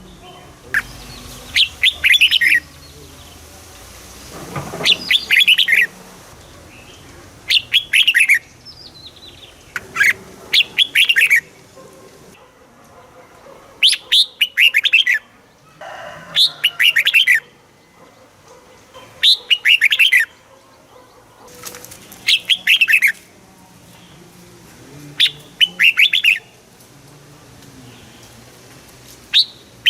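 Red-whiskered bulbul singing: short, bright phrases of several quick, falling whistled notes, repeated about every two to three seconds.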